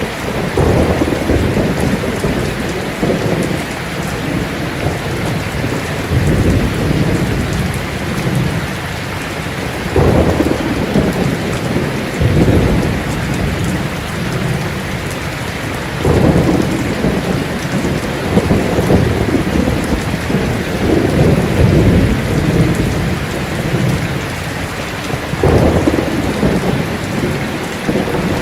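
Heavy rain falling on a tin roof as a steady hiss, with thunder rolling through it in repeated low rumbling surges every few seconds.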